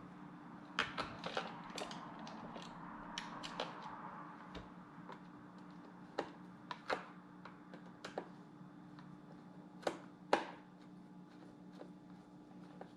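Irregular sharp clicks and knocks of hard plastic parts being handled, clustered in the first few seconds with the loudest pair about ten seconds in, over a faint steady low hum.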